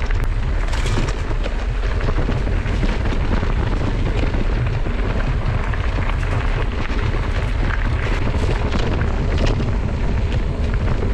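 Wind buffeting the microphone of a mountain bike's camera, with a constant low rumble and a stream of small knocks and rattles from the bike's tyres and frame over a rocky dirt singletrack.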